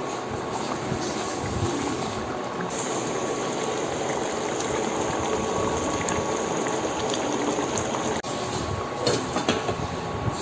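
Fish curry simmering and bubbling in a pot, a steady bubbling hiss. Near the end come a few sharp knocks as the glass lid is set on the pot.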